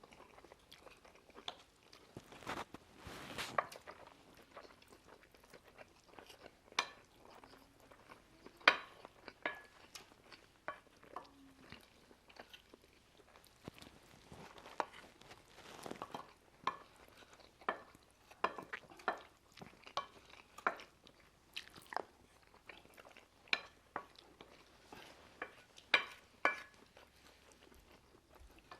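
Fast eating of chicken korma and rice: chewing, with scattered sharp clicks of cutlery against plates.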